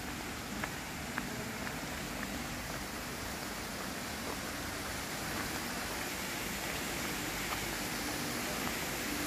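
Steady hiss of rain, with a few faint ticks in the first second or so.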